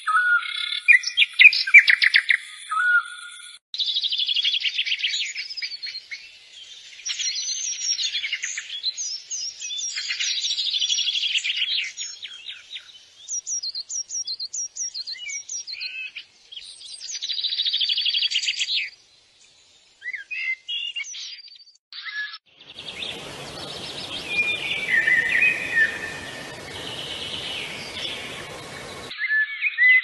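Small birds chirping and trilling: rapid high chirps and twittering phrases in several separate recordings spliced together, each breaking off abruptly. About three-quarters of the way through, one stretch of calls sits over a steady hiss.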